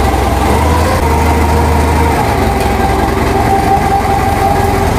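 Truck engine running steadily at idle, a constant low hum.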